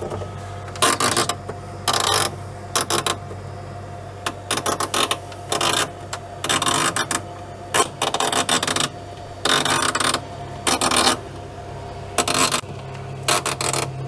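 Defrost timer on a Westinghouse fridge-freezer being turned round with a flat-blade screwdriver to advance it into the defrost cycle. It gives a string of irregular scraping bursts, each under a second, over the steady low hum of the running compressor.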